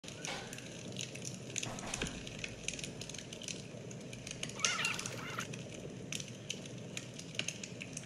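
Campfire crackling and popping steadily, with a short wavering call, loudest of all, about halfway through.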